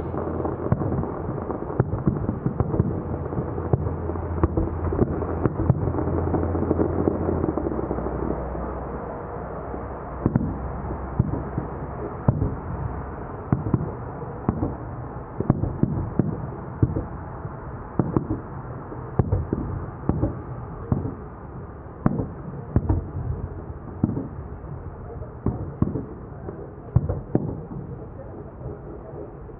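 Fireworks display: a long run of sharp, irregular bangs, often several a second, over a low rumble that is heaviest in the first eight seconds or so.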